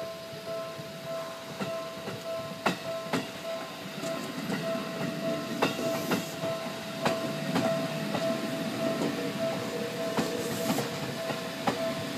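Japanese level-crossing warning bell ringing in steady, even pulses while a Seibu Tamagawa Line train rolls over the crossing. Its wheels clack sharply over the rail joints, and a low running rumble builds about four seconds in.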